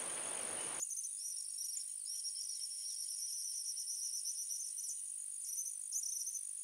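Outdoor ambience of a steady high-pitched insect drone with small birds chirping. For about the first second a rushing noise lies under it, then cuts off abruptly.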